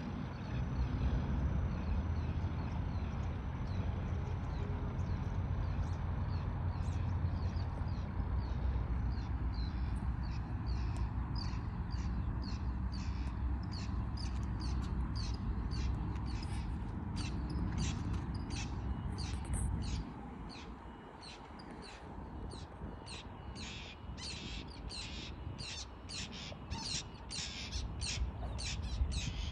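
A bird calling in a long run of short, high calls, two to three a second, starting about a quarter of the way in and growing quicker and louder. Under it a low rumble that drops away about two-thirds through.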